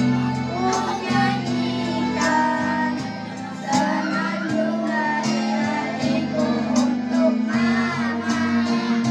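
Children singing into microphones over an accompaniment of sustained low notes that shift every second or two, the melody bending up and down in long phrases.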